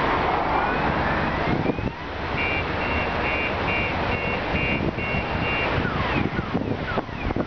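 Wind buffeting the microphone over the steady outdoor rumble of a distant electric train approaching. From about two and a half seconds in, a run of about eight short, high electronic beeps, two or three a second, then they stop.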